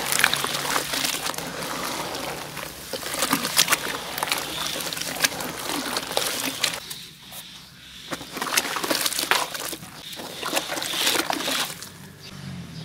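Hands sloshing and swirling muddy, foamy water in a basin, with irregular splashes; the sloshing eases briefly a little past halfway, then picks up again.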